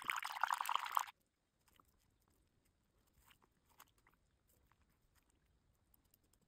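Hand swishing water in a glass bowl, a splashy, crackly sound lasting about a second, then only faint soft wet sounds as crocheted swatches are pressed down into the soapy water to soak before blocking.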